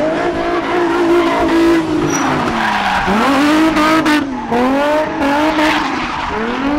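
Nissan 350Z drift car's engine revving high with its pitch swinging up and down as the throttle is worked, dipping sharply about three seconds in, over the constant squeal of tyres sliding sideways.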